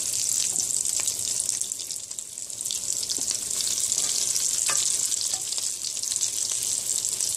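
Hot oil sizzling and crackling steadily around flour-and-egg-coated potato balls deep-frying in a pot, with a few light clicks scattered through.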